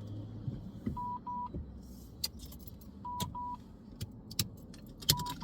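Dashcam beeping a double beep about every two seconds, warning that no SD card is inserted. A few sharp clicks and light rattles in between.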